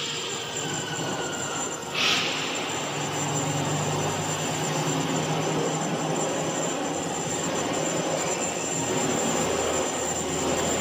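CNC router spindle milling a carbon steel plate with a coolant-fed end mill: a steady high whine over dense cutting and grinding noise, with a short loud rasp about two seconds in.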